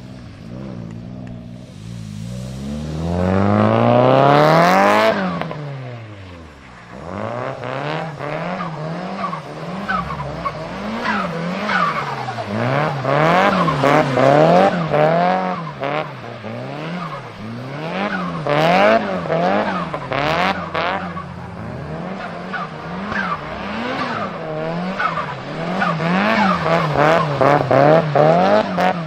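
Tuned Nissan Silvia S15's turbocharged four-cylinder engine revving hard once, then revs rising and falling about once a second. Turbo flutter chatters each time the throttle lifts.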